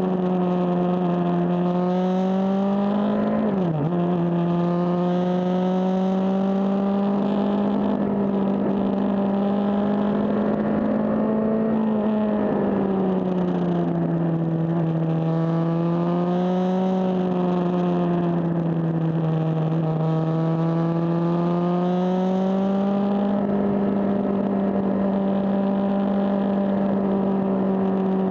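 Suzuki GSX-R600 inline-four engine running under way at steady mid revs, its pitch slowly easing down and climbing back as the throttle changes through the bends. There is one brief sharp dip in pitch about four seconds in.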